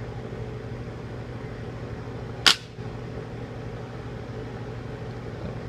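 A single sharp crack of an air rifle being fired, about halfway through, over a steady low hum.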